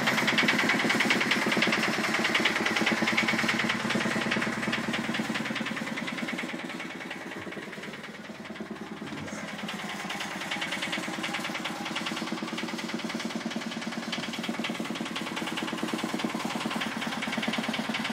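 Yanmar YSE12 single-cylinder marine diesel idling with a steady, rapid knock, heard from inside the yacht's cabin. It grows fainter a little past the middle and then comes back up.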